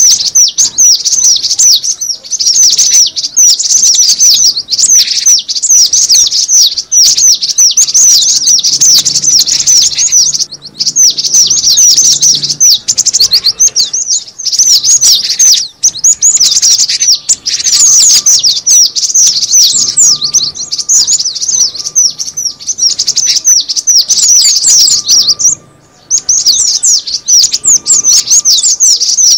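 Cinereous tit (gelatik batu) calling loudly in a fast, unbroken run of sharp, high chirps, with one brief pause near the end.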